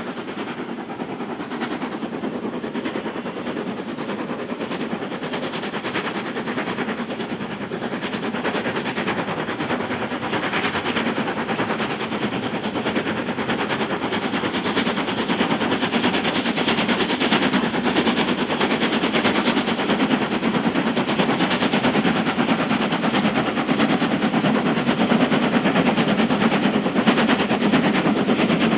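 Preserved steam locomotive working hard up a steep gradient, its exhaust beating in a fast, sharp, continuous staccato that grows steadily louder as it approaches.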